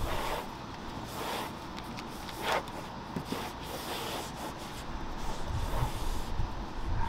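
Microfibre towel rubbing over a fabric-and-plastic car door panel, a steady rubbing hiss with a few short sharper swipes. It is wiping loose flocking fibres off a cured fabric repair.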